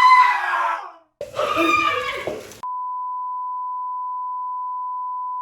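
A loud voice for the first couple of seconds, broken by a short cut, then a steady single-pitch bleep held for about three seconds: an edited-in censor bleep.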